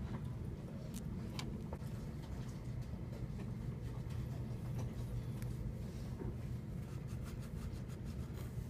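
Board book page turned, a few soft clicks about a second in, then a fingertip rubbing back and forth on the sandpaper 'scratchy face' patch near the end. A steady low hum lies under it all.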